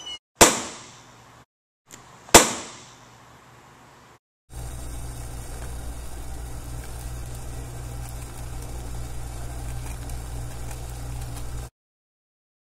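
Two sharp bangs about two seconds apart, each dying away with a ringing tail, then a steady low rumble lasting about seven seconds that cuts off suddenly.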